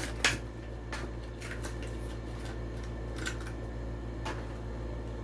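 Plastic blister packaging of a Hot Wheels die-cast car being opened by hand: a few sharp crackles and clicks, spaced irregularly, over a steady low hum.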